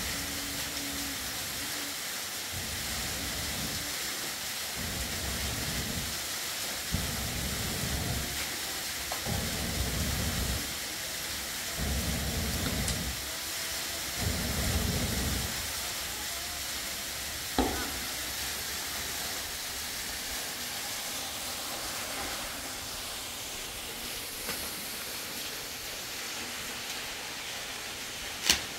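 A person blowing hard on smouldering embers to rekindle a wood fire: about seven long breaths a second or two apart, each a low rush of air, over a steady hiss. A sharp click near the end.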